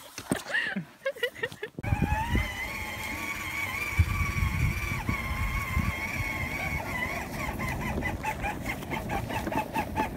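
Battery-powered toddler ride-on toy quad's electric motor whining steadily as it rolls over grass, turning choppy and pulsing from about seven seconds in. A short burst of a child's voice comes first.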